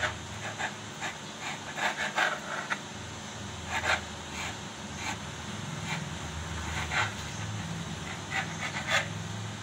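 Kitchen knife drawn through a thin sheet of dough against the countertop: short, irregular soft scrapes every half second to a second, over a steady low hum.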